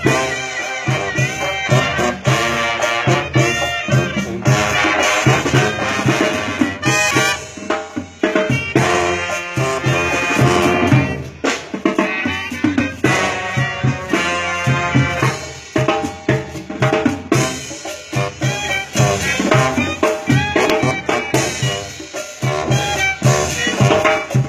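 Mexican brass band (banda) playing live: trumpets and other brass with a sousaphone, over a steady bass drum beat.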